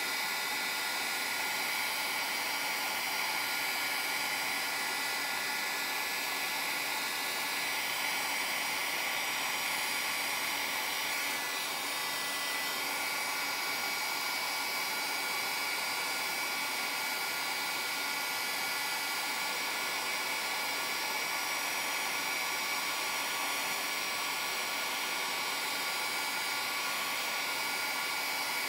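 Embossing heat tool running steadily, an even rush of blown hot air with a faint whine, as it melts embossing powder on card stock.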